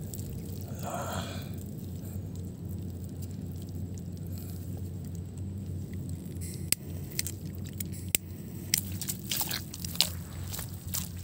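Handling noise as DIY whistle bomb firecrackers are pressed into cracked dry mud, with crunching and scraping. Sharp clicks and crunches come faster in the second half, ending in footsteps on the dry ground.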